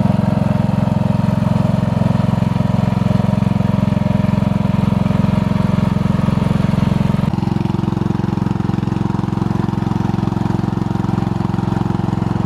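Riding lawn mower engine running loud and steady, with an even low rumble. Its tone changes abruptly about seven seconds in, then runs on steadily.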